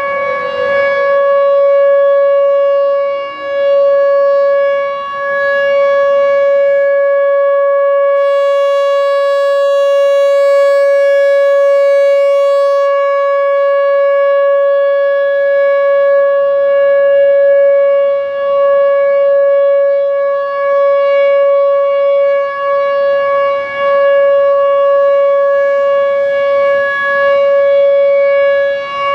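Whelen Vortex R4 outdoor warning siren sounding the alert signal: one loud, steady tone with no rise or fall in pitch. Its loudness swells and dips every few seconds as the rotating siren turns toward and away, and the recording overloads when it faces the microphone.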